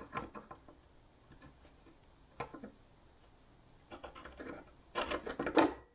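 Digital caliper jaw scribing a mark on a small painted steel patch panel: a few faint scratches and light clicks, then louder scratching strokes near the end.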